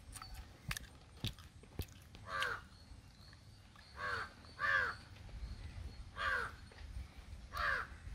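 A crow cawing five times, each caw short and a second or more apart. Under the caws are a few sharp clicks from chewing and cracking crab shell, mostly in the first two seconds.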